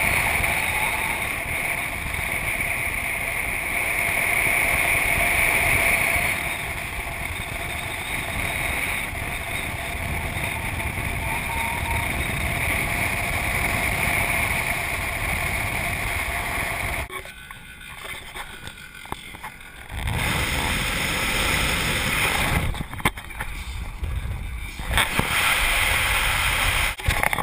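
Subaru car driving at speed heard from a camera mounted on the outside of the body: a steady rush of wind over the microphone with engine and tyre rumble beneath. The sound drops away sharply twice for a few seconds in the second half.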